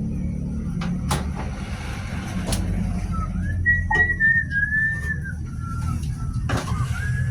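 A wavering whistled tune, gliding up and down for a couple of seconds from about midway and again briefly near the end, over a steady low rumble with a few sharp clicks.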